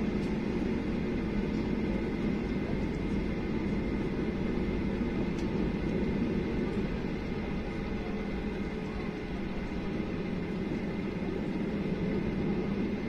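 Steady cabin noise of a Boeing 737-800 taxiing with its CFM56-7B engines at idle: an even hum with a few steady tones running through it.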